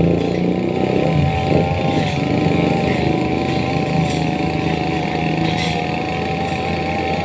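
Engine running. Its speed changes during the first second, then it settles to a steady run with a constant whine over it.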